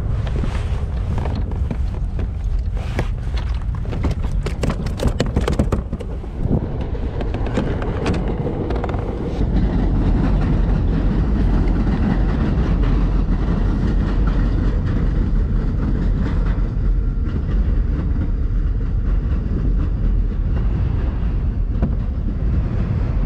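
Wind buffeting the camera microphone as a steady low rumble, growing louder about ten seconds in. Over the first six seconds come quick clicks and knocks of fishing gear being handled on the kayak.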